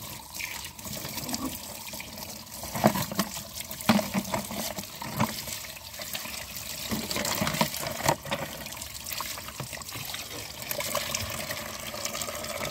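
Water running into a plastic bucket and splashing as a hand swishes and rubs muddy toy vehicles in it, with a few sharp knocks as the plastic toys are handled.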